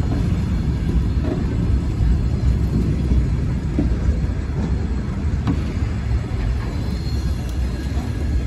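Freight wagons rolling past on a siding: a steady low rumble of steel wheels on rail, with faint clicks and a thin high squeal about seven seconds in.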